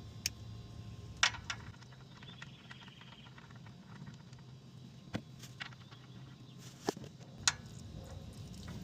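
A few scattered light clicks and knocks of hands and tools working at a car's engine, over a faint steady low hum.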